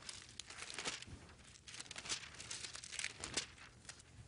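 Bible pages being turned: thin paper rustling and crinkling in several short flurries.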